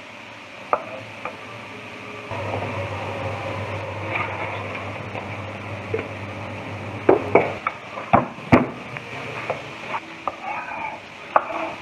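Oil sizzling steadily in a pan with garlic frying in it, and a knife knocking on a wooden cutting board in sharp single strokes. A quick cluster of knocks about seven to eight and a half seconds in is the loudest part.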